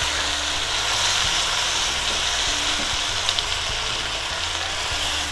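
Starling pieces and spice masala sizzling steadily in hot oil and a little water in a non-stick karahi while being stirred with a silicone spatula. A few light clicks about three seconds in.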